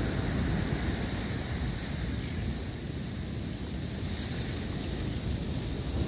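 Wind buffeting the microphone, a steady low rumble, over a continuous wash of ocean surf.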